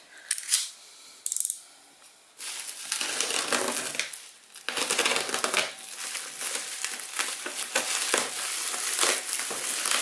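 Bubble-wrap plastic packaging being slit with a utility knife and pulled open. A couple of short clicks come first, then a dense crackling and rustling of the plastic from about two seconds in.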